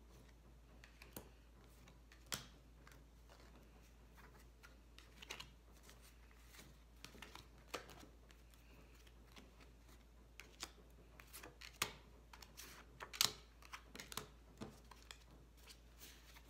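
Tarot and oracle cards being handled, pulled from decks and laid down on a wooden table: scattered faint taps and slaps, with a few sharper snaps in the second half.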